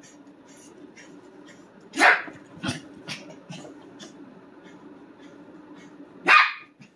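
Small dog barking in play as a hand teases it: two loud sharp barks, about two seconds in and near the end, with a few softer yips between.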